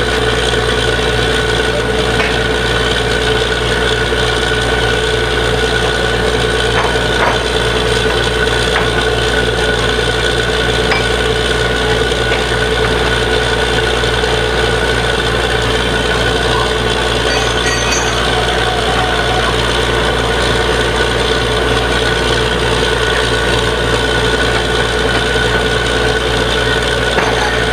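Borewell drilling rig running steadily under load: a loud, constant machine noise with a steady whine and no pauses.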